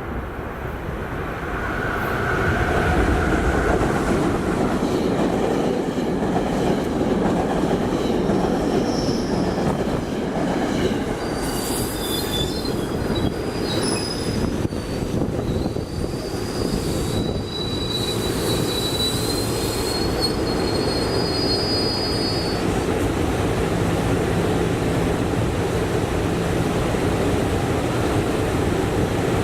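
SEPTA Regional Rail electric train running past on the rails with a steady rumble. High wheel squeal comes in about a third of the way through and lasts some ten seconds, and a low steady hum sets in near the end.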